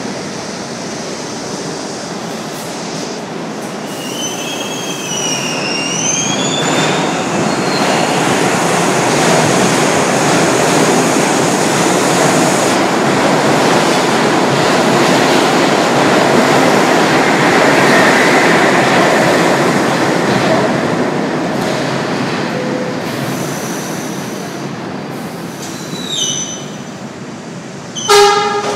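New York City subway train pulling into the station: a steady rumble of wheels on rail that swells to its loudest about two-thirds through and then dies down as the train slows. Wheels squeal in wavering tones about five seconds in, and a brief squeal follows near the end as it stops. A short, loud blast of tone comes just before the end.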